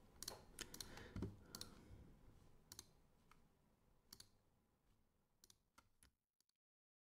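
Faint computer mouse clicks, a few scattered short clicks over several seconds against a low room hiss. The sound cuts to dead silence about six seconds in.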